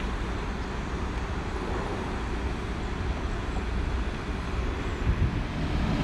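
Steady low rumble of urban outdoor background noise, with no distinct events standing out.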